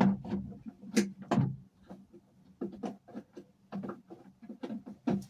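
A string of irregular knocks and clicks from tools and fittings being handled, with a faint steady low hum underneath.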